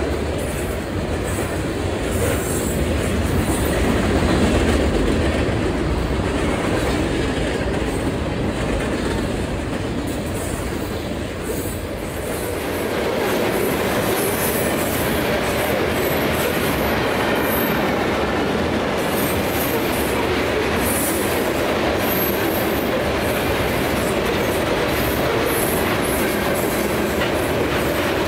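Freight train of covered hopper cars rolling past close by: a steady loud rumble of steel wheels on rail. About halfway through, sharper high-pitched clatter and screech join in.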